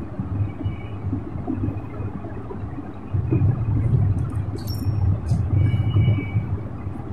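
Armoured cable being bent and twisted by hand to break away its scored outer sheath: a low rubbing, handling rumble that grows louder about three seconds in, with a few faint clicks.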